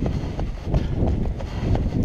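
Running footsteps on a dirt and stone trail, about three footfalls a second, with wind rumbling on the microphone.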